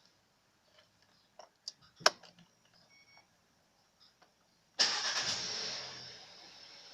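A few light clicks and one sharp knock, then about five seconds in an engine starts suddenly, loud at first and settling within a second to a steadier run.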